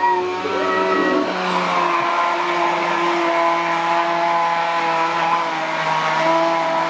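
Hand-held immersion blender running steadily in a tall cup, blending a smoothie; its motor hum shifts pitch slightly about two seconds in and again near the end as the load changes.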